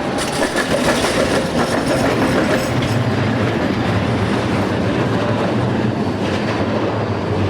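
Tram running along street track: steady wheel-on-rail and motor noise with a low hum, and a few sharp clicks as the wheels pass over rail joints.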